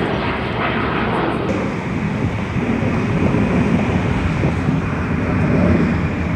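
Jet airliner engine noise, a steady low rumble that swells a little near the end.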